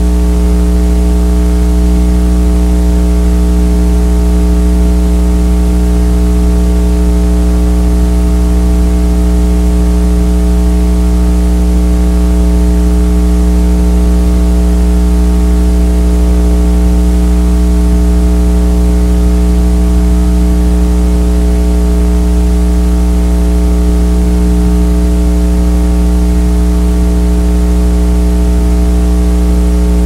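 Loud, steady electrical hum with a stack of even overtones over a constant hiss.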